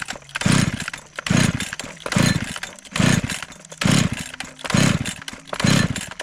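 A chainsaw engine revved in short, regular bursts about once a second, dropping back to a low idle between them, as the newly arrived saw is tested.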